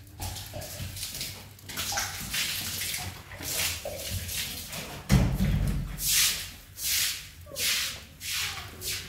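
Repeated rasping strokes, irregular at first and then steady at about three every two seconds, with a heavy thud about halfway through.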